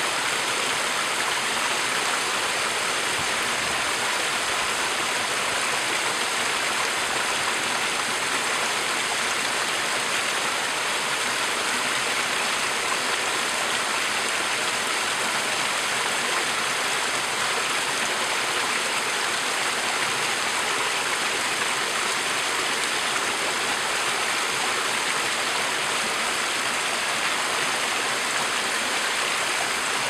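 Small mountain stream running over a short cascade of rocks: steady, even splashing water.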